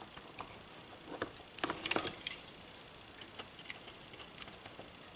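Faint scattered clicks and light metal taps of a knife blade working a small crimp terminal, prying it open wider so a wire will fit; a few louder clicks come about one to two and a half seconds in.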